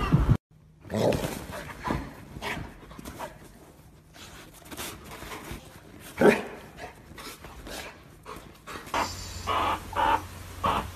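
A dog making short vocal sounds, then a run of short repeated calls, about two a second, near the end.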